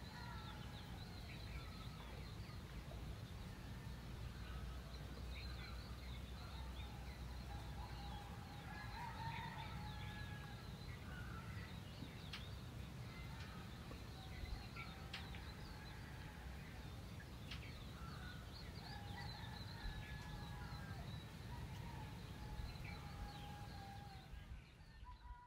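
Birds calling, with many short chirps and a few longer drawn-out calls about 9, 17 and 22 seconds in, over a low steady rumble. The sound fades out at the end.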